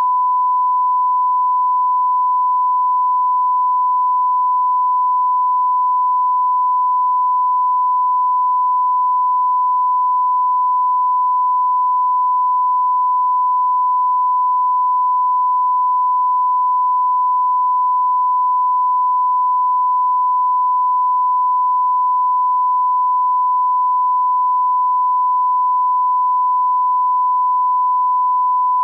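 Steady 1 kHz test tone, one pure unbroken pitch held throughout. It is the reference tone filling the slot left for a commercial break.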